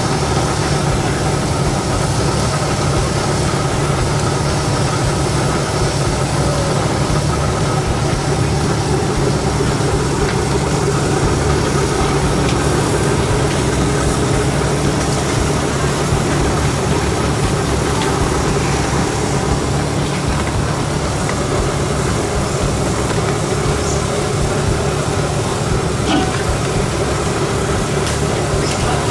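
A steady mechanical drone with a constant low hum, unchanging throughout.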